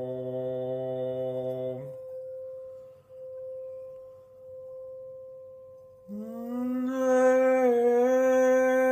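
A man's voice holds a low drone over a Tibetan singing bowl, then stops about two seconds in, leaving the bowl's single steady ring alone. About six seconds in the voice returns, sliding up into a higher, louder held tone that wavers slightly.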